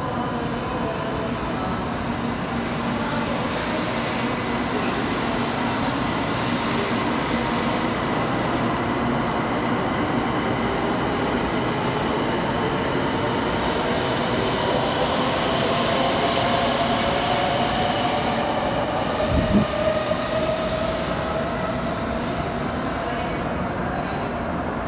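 A 700 series Shinkansen (Hikari Rail Star set) pulls out and accelerates past, its electric traction motors giving a whine that slowly rises in pitch over the steady rush and rumble of wheels and air. A single short thump comes about three-quarters of the way through.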